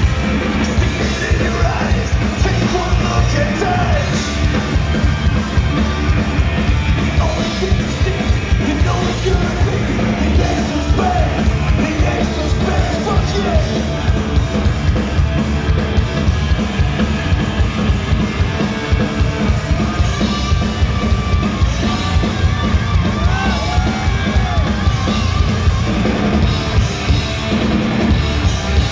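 Live rock band playing loud and without a break: electric guitars, bass and drums, with a yelled, sung vocal that holds wavering notes in the latter part. Heard from within the audience through a phone's microphone.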